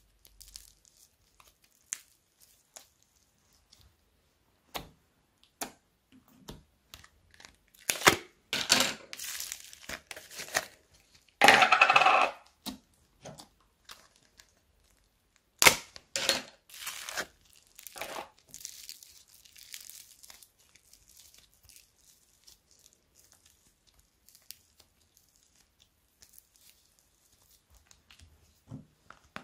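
Fluffy slime stretched and pulled apart by hand: sticky tearing and crackling in scattered bursts, loudest in a few longer bursts around the middle.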